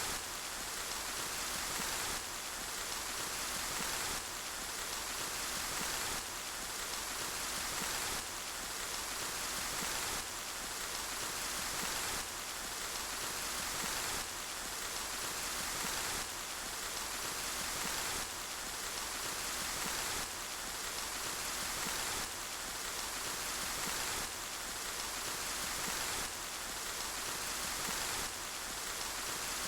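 Steady hiss of heavy rain. It swells slightly and then drops back sharply about every two seconds, in an even repeating pattern.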